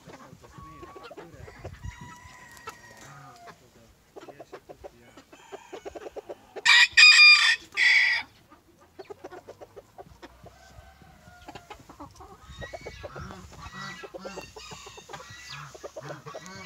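A Silkie rooster crowing once, a loud, short crow about seven seconds in with a brief break near its end. Soft chicken clucking goes on around it.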